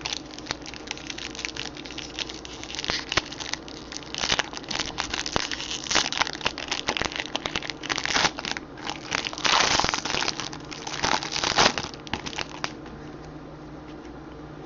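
Foil wrapper of a baseball card pack being torn open and crinkled by hand, in irregular crackling surges that stop a little before the end. A steady low hum runs underneath.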